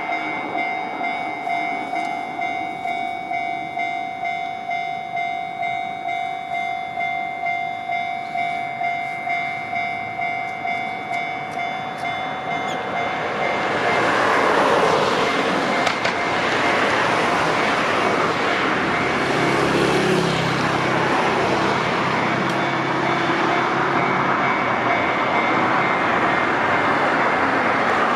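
Japanese level-crossing warning bell ringing in a steady repeated ding, about one and a half strikes a second. About 13 seconds in, an electric train comes up and runs over the crossing. Its wheel and running noise swells and drowns the bell, with a low rumble as the cars go by.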